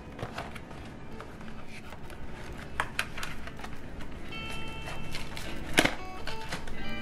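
A cardboard phone-case box being handled and opened by hand: steady scratchy rubbing of paperboard with light taps and clicks, and a sharp snap just before the end. Soft music comes in about four seconds in.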